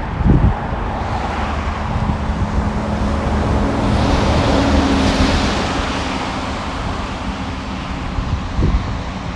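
Wind buffeting the microphone with a low rumble, over road traffic; one vehicle passes, its hiss and engine hum rising to a peak about halfway through and fading away. The hiss fits tyres on a wet road.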